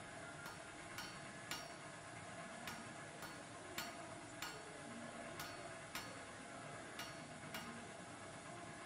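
Sharp clicks at uneven spacing, about one to two a second, over a steady faint hiss: computer controls being clicked while a map view is steered.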